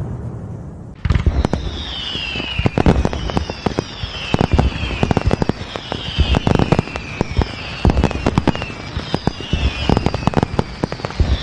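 Fireworks going off: the tail of a boom dies away, then about a second in a rapid barrage of cracks and bangs starts, with a falling whistle repeating about every second and a half.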